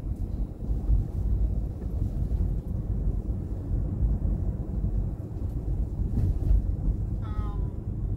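Low steady road and engine rumble inside a moving car's cabin, with a brief high-pitched sound about seven seconds in.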